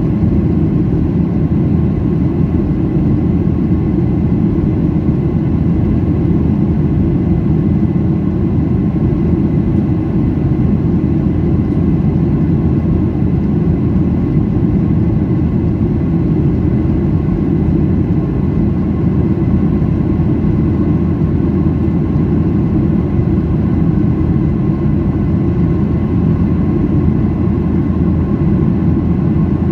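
Cabin noise inside a Boeing 737-800 in its climb after takeoff: the CFM56-7B turbofans and the airflow heard from a seat by the wing as a loud, even, deep rush with faint steady high tones over it.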